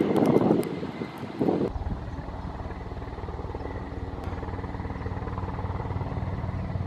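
A loud rushing noise swells and fades for the first second or two. It then gives way abruptly to a steady low motor drone with a fast, even pulse.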